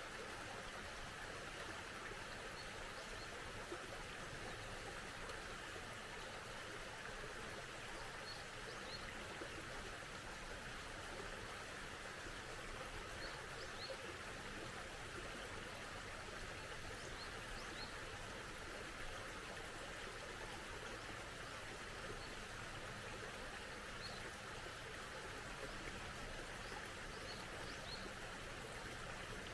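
Mountain stream flowing with a steady rushing sound, with faint high bird chirps every few seconds, often in pairs.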